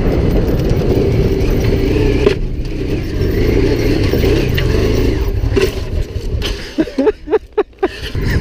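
Honda Africa Twin's engine pulling hard in first gear up a steep, rocky climb, with wind noise on the helmet camera. The engine drops away about six and a half seconds in, after the top of the climb.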